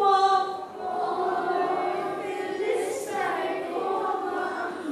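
Children's choir singing together, a song of sung phrases with held notes.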